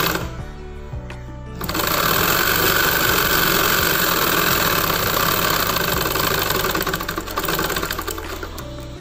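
Domestic straight-stitch sewing machine running as a seam is sewn: a short burst, a pause of about a second and a half, then a steady run of stitching that eases off near the end.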